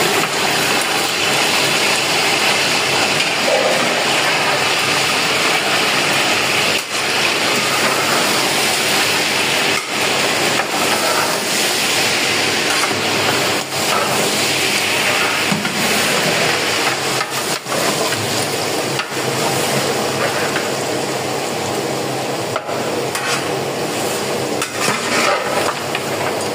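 Raw mutton pieces sizzling in hot oil in a large aluminium pot: a steady frying hiss as the meat is tipped in and stirred with a long metal ladle, with a few sharp knocks of the ladle against the pot.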